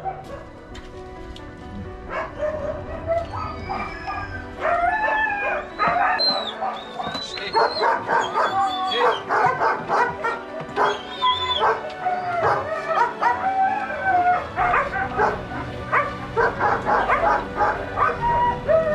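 Several dogs barking together, the barking getting busier a few seconds in, with background music underneath.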